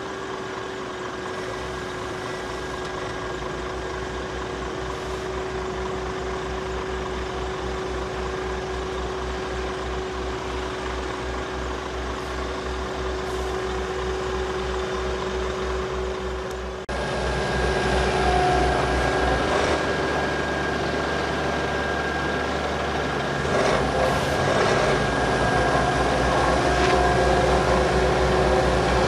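Heavy diesel truck engine running steadily with a low throb and a steady whine. About two thirds of the way in the sound cuts abruptly to a louder take of machinery running, with a few knocks.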